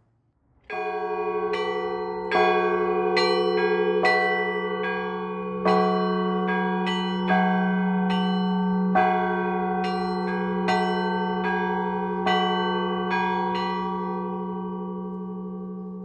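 Orthodox church bells rung by ropes and a foot pedal in a steady rhythm. A deep pedal bell keeps a low hum under louder accents on the downbeats, and smaller bells are struck between, with a few quick eighth-note pairs. About three seconds before the end the strikes stop and the bells ring on, fading.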